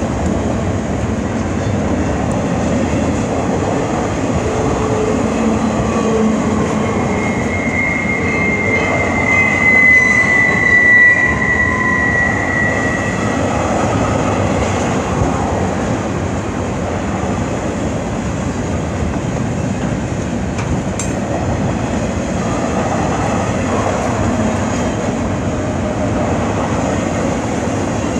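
CN double-stack intermodal freight train's container well cars rolling past on curved track, a steady rumble and clatter of wheels on rail. A high-pitched wheel squeal rises for several seconds about a third of the way through, the loudest part, then fades.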